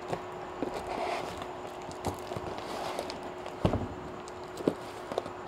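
A utility knife slitting the packing tape and plastic wrapping of a parcel, with crinkling and scattered small clicks as hands handle the package. Two louder knocks a bit over halfway through and about a second later. A faint steady hum runs underneath.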